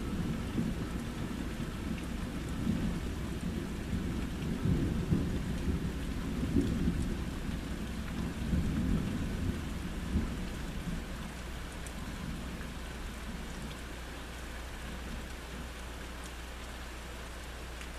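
Thunder rumbling over steady rain, in uneven surges that die away about two-thirds of the way through, leaving only the hiss of the rain.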